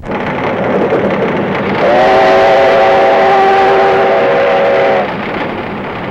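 Steam locomotive running at speed, the steady rush and rattle heard from the cab, with one steady whistle blast of about three seconds starting about two seconds in.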